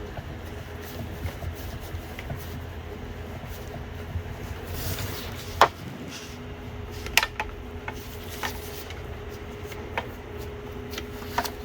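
Sharp metal clicks and taps of a socket and new sensor knocking against the engine while the sensor is being started into its threads, a few seconds apart, over a steady low hum.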